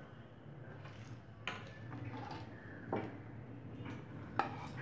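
Metal spatula knocking lightly against a non-stick pan and a plate while lifting out a slice of bread pizza: three faint clicks about a second and a half apart, the last the loudest.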